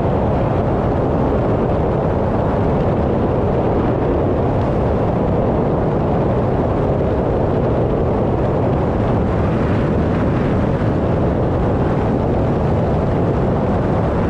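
Cessna 185 floatplane's piston engine and constant-speed propeller running steadily in flight, heard from inside the cockpit.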